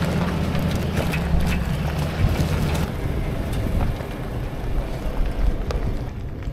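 A four-wheel drive moving slowly on a rough dirt track. A steady low engine hum lasts for about the first three seconds, then gives way to the rumble of tyres on dirt with a few light knocks.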